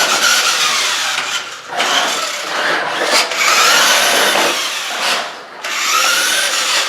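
Electric motor and gear drive of a toy RC monster truck whirring in spurts as it is driven, the whine rising and falling with the throttle; it drops off briefly about five seconds in.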